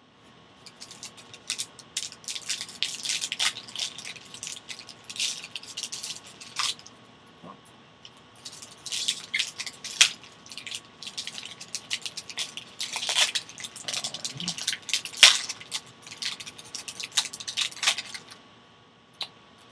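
Foil wrapper of a sealed trading-card pack crinkling and tearing open in the hands: a dense run of sharp crackles with a few louder snaps.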